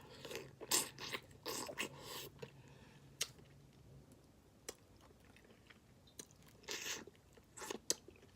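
Eating snow crab legs: scattered short cracks and crunches of shell being broken and bitten, with chewing sounds in between, coming in brief irregular bursts.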